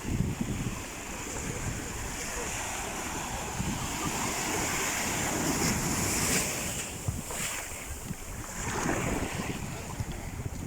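Sea waves washing in, building to a peak in the middle and easing off again, with wind buffeting the microphone.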